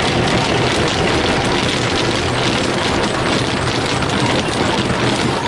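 Spinning red foam-strip brushes of a Ryko SoftGloss XS rollover car wash slapping and swishing against the car's windows and body amid spraying water, heard from inside the car. The loud, dense swishing drops off sharply right at the end.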